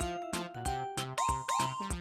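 Upbeat background music with a bouncy, steady beat and bright synth notes.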